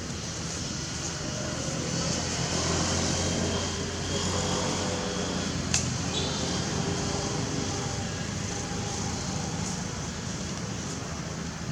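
Steady outdoor background noise with one sharp click about halfway through.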